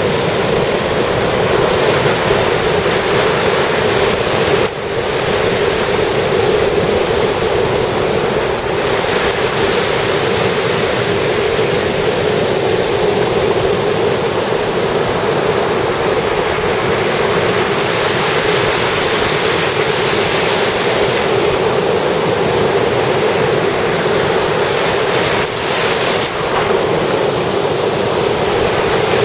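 Ocean surf breaking and washing up the beach in a steady, continuous rush of noise, dipping briefly about five seconds in and again near the end.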